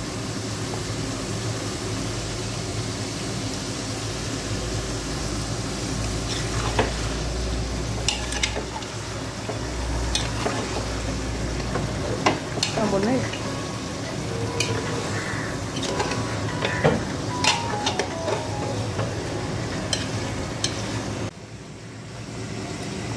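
Mutton pieces sizzling and frying in an aluminium pressure cooker while a steel ladle stirs them, the ladle clinking and scraping against the pot many times. Near the end the sizzle stops suddenly and a quieter sound takes over.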